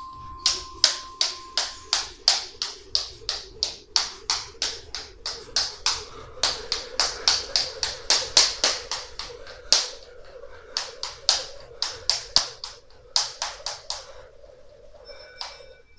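Beaded jump rope striking a wooden floor once each turn, a quick even run of sharp slaps about three a second, with a brief break about ten seconds in and again near the end. Electronic timer beeps sound near the end.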